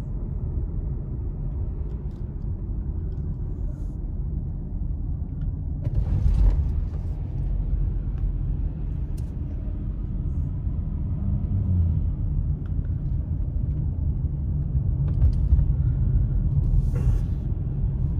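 Road noise inside a moving car: a steady low rumble of engine and tyres on wet pavement, with two brief hissing swishes, about six seconds in and near the end.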